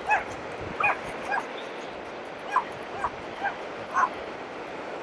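A dog whimpering and yipping in short, high, separate cries, about eight in a few seconds, over faint surf.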